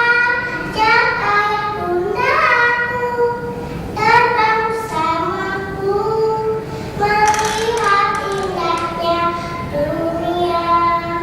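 A young girl singing a melody solo, holding each note for about a second.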